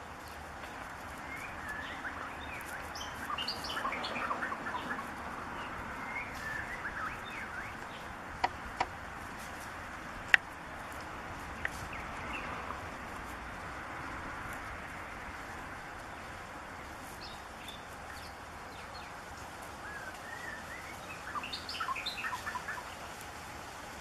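White-rumped shama singing: quick runs of varied whistled notes in the first few seconds and again near the end. A few sharp clicks fall in the middle, one of them the loudest sound.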